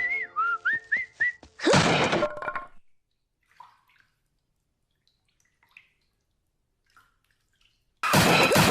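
A whistled tune over a clicking beat, cut off by a loud chair-hit crash about two seconds in. Then near silence with a few faint noises, until a loud burst of noise starts near the end.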